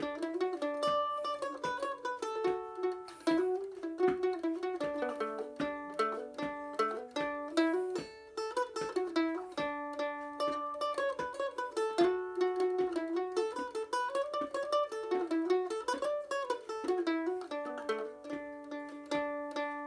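Solo plucked string instrument playing a slow Irish melody with chords, the held notes sustained by rapid repeated picking.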